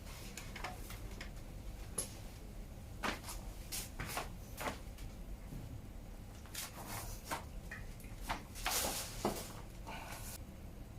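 Bicycle chain being handled and fitted onto the chainring and cogs: scattered light metallic clicks and clinks of the links, busiest about nine seconds in.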